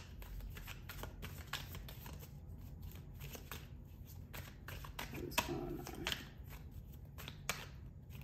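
A tarot deck being shuffled by hand, the cards tapping and slapping together in quick, irregular clicks.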